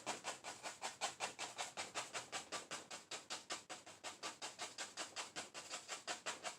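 Oil-paint brush tapping rapidly on canvas, dabbing in clouds, about six dabs a second in a steady, even rhythm.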